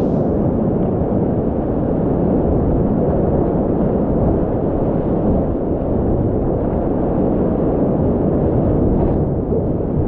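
Whitewater rapids rushing under and around a kayak: a steady, muffled low roar of churning water, with a short splash about nine seconds in.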